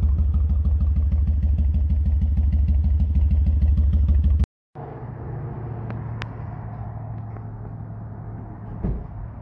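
Rock crawler engine running loud and close with an even, lumpy low pulse. It cuts off suddenly partway through, and a quieter engine then runs steadily, with a brief knock near the end.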